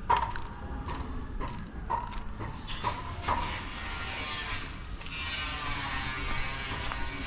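Rumble and rattling of a moving vehicle, with irregular sharp clicks in the first few seconds and a hissing rush from about the middle on.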